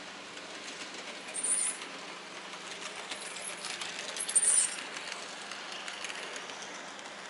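Model steam locomotive running on the layout track: a light rolling whir with a patter of fine clicks as it passes close, strongest around three to five seconds in. Two short high-pitched squeals, about one and a half and four and a half seconds in, stand out above it.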